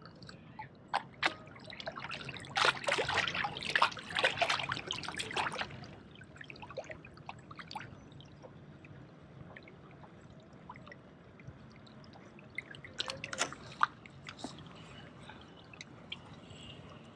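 Seawater lapping and trickling among the rocks at the water's edge, with a denser spell of splashing and crackling from about two and a half to six seconds in and a brief cluster again near thirteen seconds.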